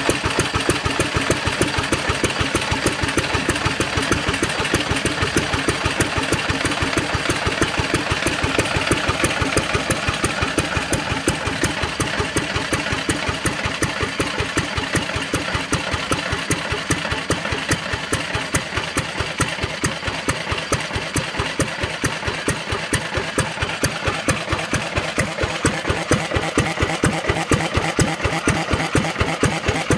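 1964 Yongxing kerosene engine running steadily, an even beat of firing strokes.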